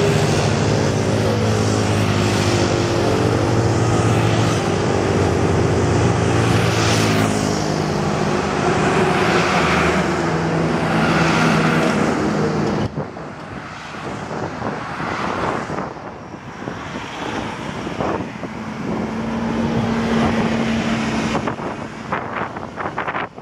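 Singapore Airlines Boeing 777 twin-jet passing low on final approach: a loud jet-engine roar with engine tones sliding down in pitch as it goes by. About 13 s in it cuts to quieter, gusty wind noise on the microphone with distant jet sound.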